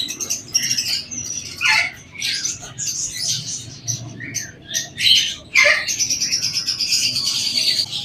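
Caged lovebirds chirping and giving sharp, high calls, with a rapid run of chattering over the last two seconds or so.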